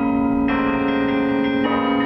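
Bell tower bells playing a holiday tune: a low bell note rings on throughout while new notes are struck about half a second in and again near the end, each ringing on into the next.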